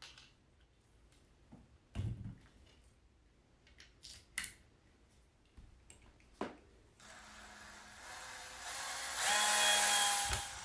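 A few short knocks from parts being handled, then a power drill running from about seven seconds in. It grows louder, with a steady whine near the end, as it drives a screw into the cage's side strut.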